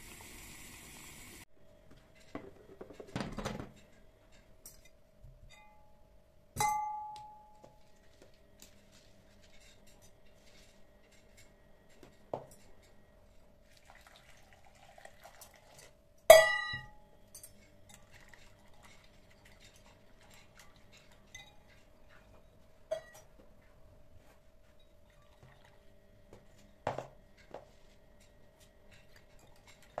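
A second of bubbling, then about half a dozen separate clinks and clanks of a metal pot and a glass measuring jug. The loudest is a ringing clank about 16 seconds in, as the pot is tipped against the jug to pour a thick soap and baking soda mixture. A faint steady hum runs underneath.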